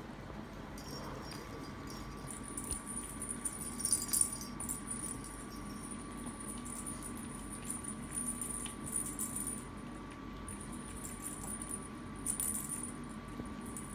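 Bell-ball toy jingling and rattling in several short flurries as Maltese puppies tussle and bat at the hanging toys, over a steady hum.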